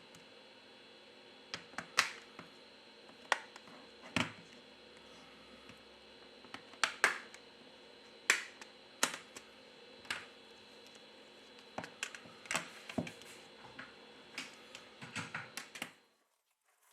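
Back cover of a Xiaomi Mi 4C phone being pried off by hand: a string of sharp, irregular plastic clicks and snaps as the cover's retaining clips let go. The clicks stop about a second before the end.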